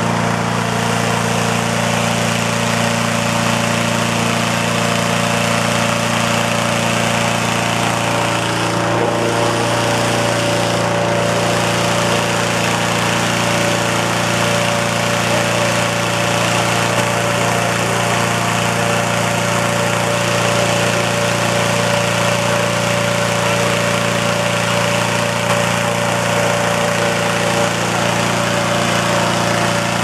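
Petrol-engine hot-air balloon inflator fan running steadily at a constant speed, blowing air into the envelope during cold inflation.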